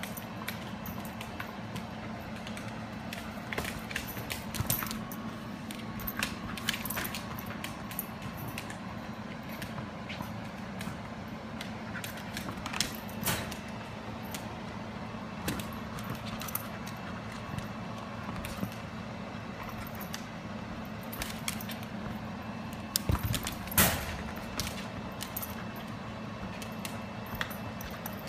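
Shiba Inu playing with a soccer ball on a hardwood floor: scattered clicks of claws on the wood and light metallic jingling, with a couple of louder thumps of the ball near the end. A steady low hum runs underneath.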